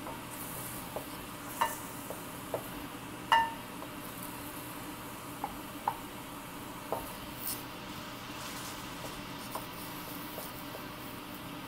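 Chicken pieces sizzling in a stainless steel pan while being stirred with a wooden spatula, which knocks against the pan now and then; the two loudest knocks, within the first few seconds, make the pan ring briefly.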